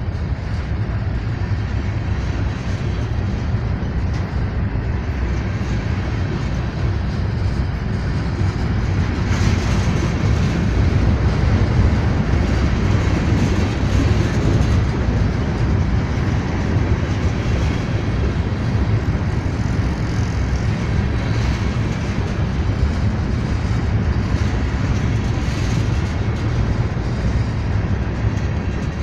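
Freight train cars rolling past, a steady rumble of steel wheels on the rails that grows a little louder about a third of the way in.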